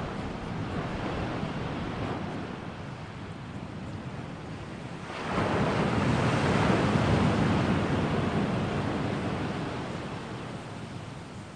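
Ocean surf: a steady rush of noise, with a louder wave breaking about five seconds in and slowly washing away.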